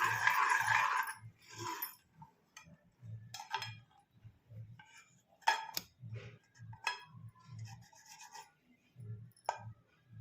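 A spoon scraping against a kadhai, stirring dry sugar as it melts into syrup. There is a longer scrape at the start, then short scraping strokes and a few sharp knocks of the spoon on the pan.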